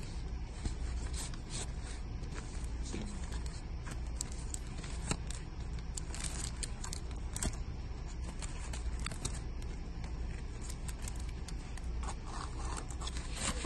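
Vinyl LP albums in plastic outer sleeves being flipped through in a crate: repeated short scrapes and rustles of the sleeves sliding against each other, over a low steady hum.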